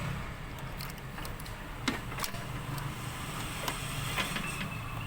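Mitsubishi 4M40 four-cylinder diesel idling steadily, with a few light clicks over it. Its hard starting was traced to four dead glow plugs, not the engine itself.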